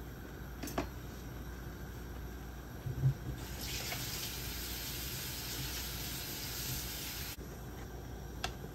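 A kitchen tap runs for about four seconds, starting and stopping abruptly. A low knock comes just before it, and light clinks of cookware come near the start and near the end.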